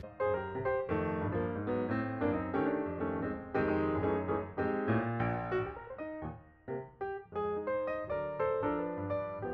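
Background piano music, a continuous run of notes that cuts in abruptly at the start.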